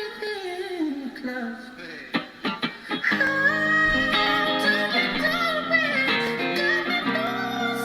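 Live male vocal singing high, sliding notes over acoustic guitar, with a few sharp plucked guitar notes about two seconds in before the voice comes back in on held notes over sustained chords.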